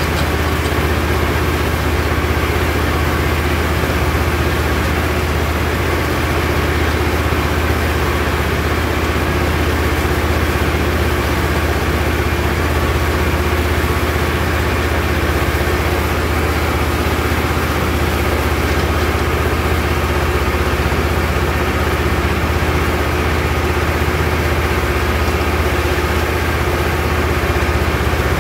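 Tractor engine running steadily under load, driving a Fahr KH 4 rotary hay tedder through the PTO shaft.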